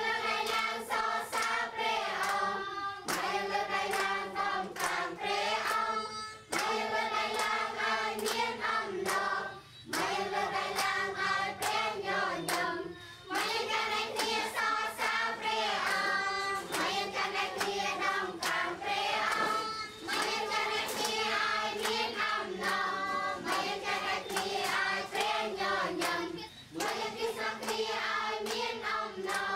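A group of children singing a simple worship song together, in phrases with short breaks, to hand clapping.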